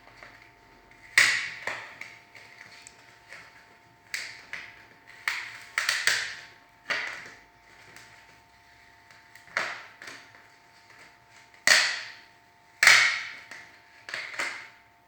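Irregular sharp knocks and clatters, about a dozen, each ringing briefly, from tools and metal parts being handled on a microwave oven under repair. A faint steady hum lies underneath.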